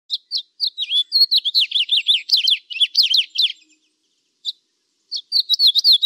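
House sparrows chirping: a quick run of short chirps, each dropping in pitch, that pauses for about a second and a half in the middle and then resumes.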